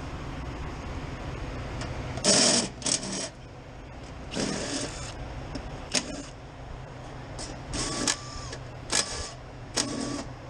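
A steady low machine hum with several short bursts of clattering and rustling, as of tools or parts being handled. A couple of the later bursts carry a brief steady tone.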